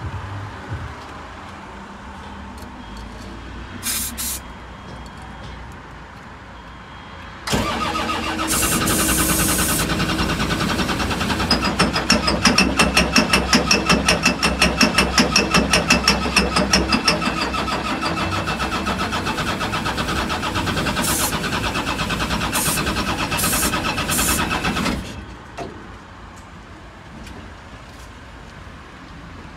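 Komatsu PW180 wheeled excavator's diesel engine being cranked by its starter for about seventeen seconds as a hard-starting engine, turning over with a fast uneven chugging, loudest in the middle. The cranking then stops abruptly and the engine does not keep running.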